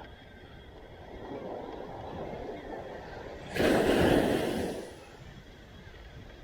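Ocean surf washing onto the beach. One wave breaks loudly about three and a half seconds in, then fades.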